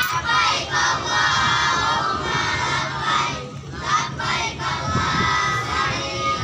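A group of children chanting together loudly, many voices at once.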